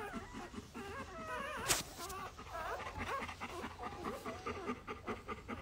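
Newborn golden retriever puppies squeaking and whimpering in short, wavering high-pitched cries while they nurse. A single sharp click about a second and a half in.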